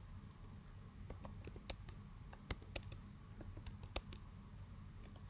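Keystrokes on a computer keyboard typing a short command: about fifteen light, irregular taps, the loudest about four seconds in.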